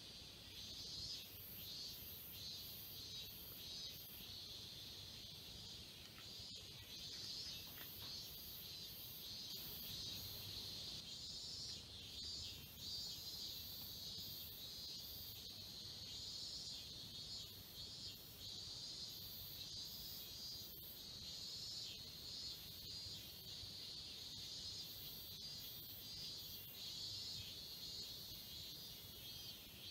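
A steady chorus of insects chirring, with a higher chirp pulsing about twice a second over it.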